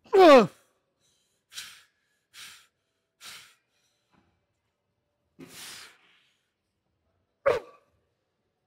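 A man grunting and breathing hard with the strain of a leg set. There is a sharp, falling groan at the start, several hard breaths, a short grunt near the end and another falling groan as it ends.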